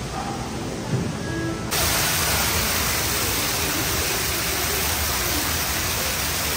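Steady rushing noise spread across all pitches, with faint music at the start; about two seconds in it jumps abruptly louder and brighter and then holds steady.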